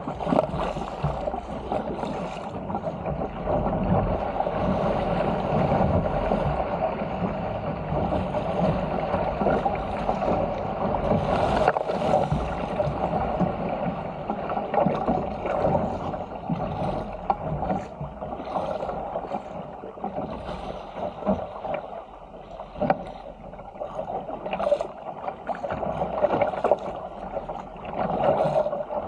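Water rushing and splashing along the hull of a Stealth 475 fishing ski as it is paddled downwind through waves, with irregular splashes from the paddle strokes and the chop.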